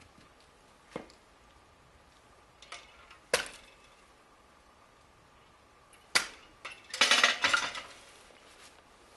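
Split firewood sticks knocking and clattering against each other and the wooden machine as they are handled: a few separate sharp knocks, then a longer rattling clatter about seven seconds in.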